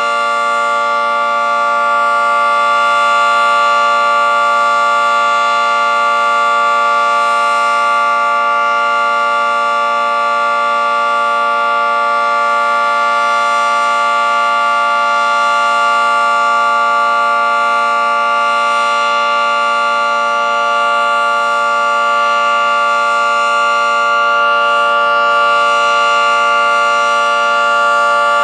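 Federal Signal 2T22 two-tone outdoor warning siren sounding its steady alert signal at full speed: a constant, loud dissonant chord with no rise or fall in pitch, swelling only slightly in loudness.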